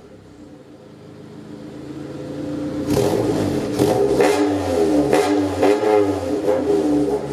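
1988 Honda CRX Si's D16A6 four-cylinder engine running through a newly fitted budget aftermarket exhaust with a test pipe in place of the catalytic converter. It starts low, builds over the first few seconds, then is revved in a string of quick throttle blips from about three seconds in.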